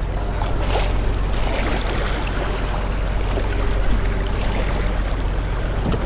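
Open-air beach ambience: wind rumbling steadily on the microphone over a wash of surf, with faint voices of a crowd of beachgoers.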